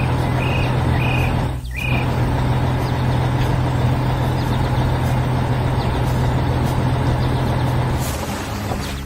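Heavy construction vehicle engine running steadily with a deep hum, with three short high chirps in the first two seconds; the engine sound changes and drops off near the end.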